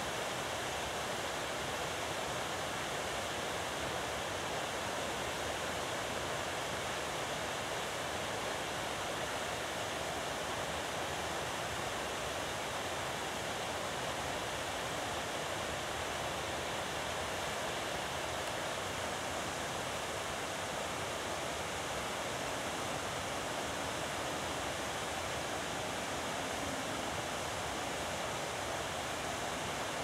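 A steady, even rushing noise that stays the same throughout, with no bird calls or other events.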